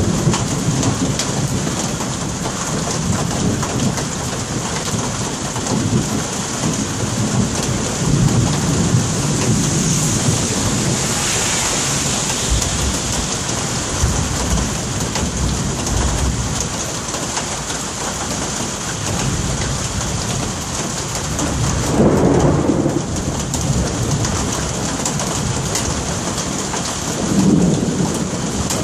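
Steady rain falling, with thunder rumbling through it. The thunder swells louder about two-thirds of the way in and again near the end.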